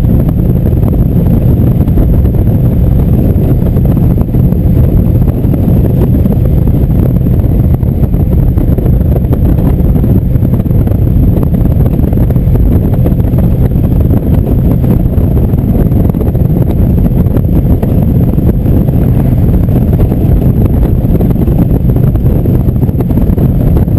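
Indian V-twin motorcycle cruising at steady highway speed: a steady engine drone mixed with road noise and low wind rumble on the microphone.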